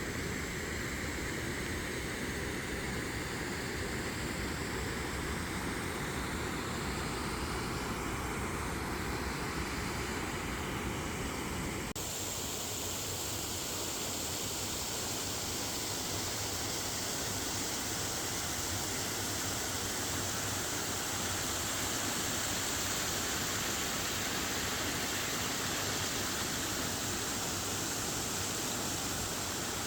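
Steady rushing noise of lake water pouring down into a sinkhole as the lake drains into underground caves. About twelve seconds in, the sound abruptly turns brighter and hissier.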